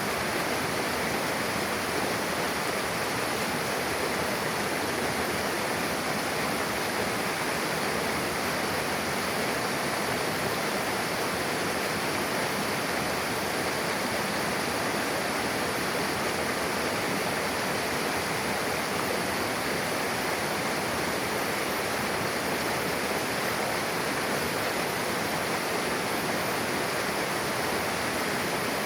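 Mountain river rushing over rocks where two streams meet: a steady, full wash of flowing water that does not change.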